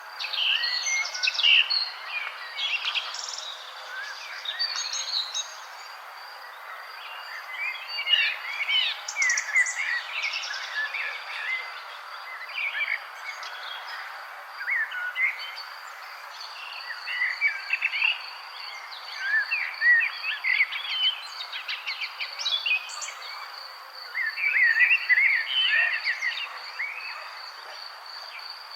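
Songbirds chirping and twittering in repeated bursts of quick, gliding notes. Under them runs a steady, high, pulsing insect trill and a soft background hiss.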